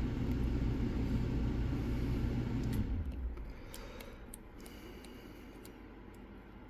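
A low vehicle rumble that fades away about three seconds in, then scattered faint metallic clicks and scrapes of picking tools working in a Mul-T-Lock padlock.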